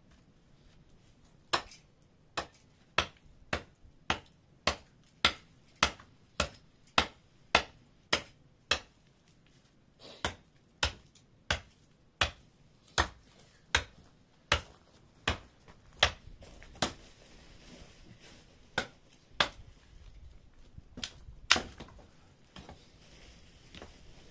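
Hatchet blows struck again and again at a steady pace of one and a half to two sharp hits a second, with a brief pause partway through. A few last, more widely spaced blows follow, the loudest near the end.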